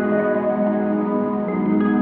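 Instrumental background music of held, overlapping notes, moving to a new lower chord about a second and a half in.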